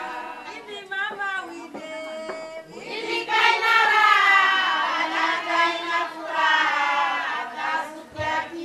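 A song sung by several voices, with long, gliding sung phrases over a steady low held note.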